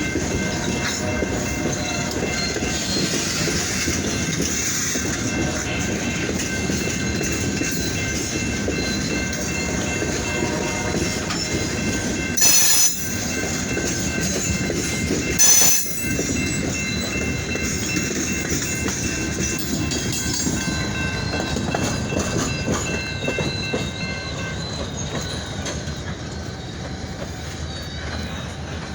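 Freight train rolling past, its cars clicking over rail joints with a steady high-pitched wheel squeal. There are two short, loud sounds about three seconds apart midway. The squeal fades out near the end.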